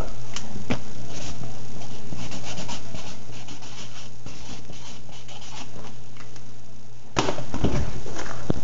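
Rubbing and scratching handling noise against a phone's microphone, in many short strokes over a steady low hum, with a louder burst about seven seconds in.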